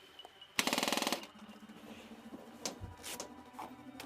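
A short, very rapid rattle about half a second long, typical of an airsoft electric gun firing a full-auto burst, followed by a few single sharp clicks.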